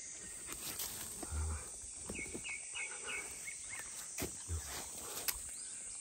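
Forest ambience: a steady high drone of crickets or other insects, with soft footsteps and rustling in dry leaf litter. A quick run of about five short high chirps comes about two seconds in.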